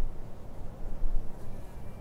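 Wind gusting, heard as a low, uneven rumble that swells and fades, with a stronger gust about a second in.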